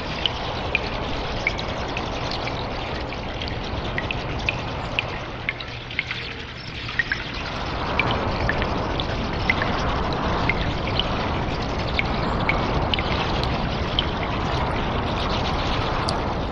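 Water in a cave: a steady rush of water with many small drips landing, several a second. The rush fades about six seconds in and swells back about two seconds later.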